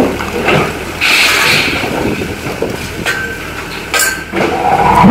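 Volvo EW60C wheeled excavator's diesel engine running steadily under load, with irregular knocks and a short crunching rush about a second in as concrete and brick rubble is broken and moved.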